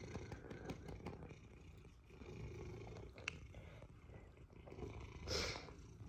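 Domestic cat purring steadily as it is stroked, a faint low rumble with a fast pulse. A short louder swish about five seconds in.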